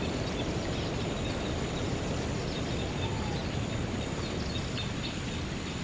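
Steady rush of flowing stream water with scattered faint bird chirps.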